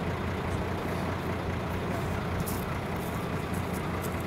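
Large truck engine idling steadily: an even, low rumble with no change in pace.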